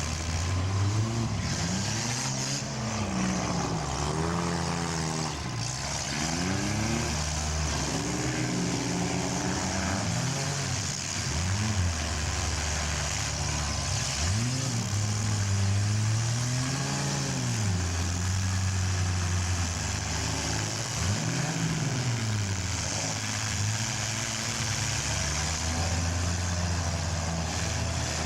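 Engines of several compact demolition-derby cars revving up and down over and over, overlapping, as the cars accelerate, back up and ram one another.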